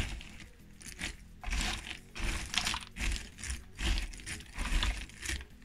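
Loose cardboard jigsaw pieces rustling and clattering as a hand stirs through a box full of them, in short bursts about two a second.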